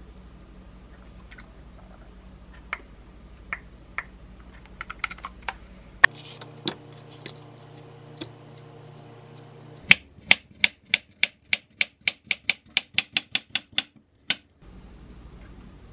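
Kitchen knife slicing a peeled banana on a wooden cutting board: a quick, even run of knife knocks on the board, about four a second, for about four seconds in the second half. Before it come scattered light clicks and taps of kitchen handling, and one sharp knock about six seconds in.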